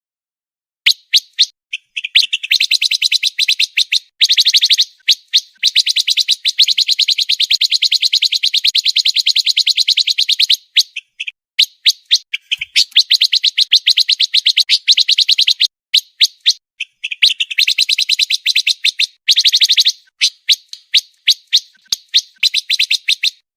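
Pancawarna bird singing a fast, tightly packed series of high chirps. It runs them together into long rapid runs of several seconds each, broken by short pauses and scattered single notes.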